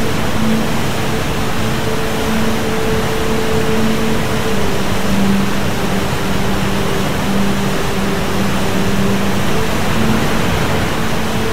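Large waterfall in spate, heavy brown floodwater pouring over rock: a loud, steady rush of falling water. Faint held low tones sit underneath, shifting in pitch about four and a half seconds in.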